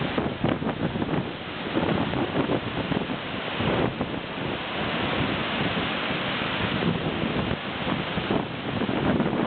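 Big waterfall close up: a dense, steady rush of falling water, with gusts of wind buffeting the microphone.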